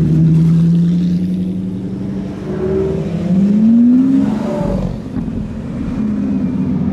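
Supercar engine pulling away: a steady engine note, then a rising rev about three seconds in that peaks around four seconds and falls off, before the note steadies again.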